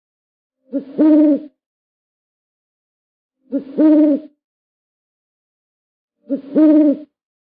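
Owl hooting: a two-part call, a short hoot followed by a longer one, repeated three times about every three seconds.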